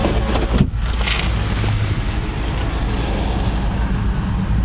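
Diesel locomotive engine running with a steady low rumble, heard from inside the cab while the locomotive moves.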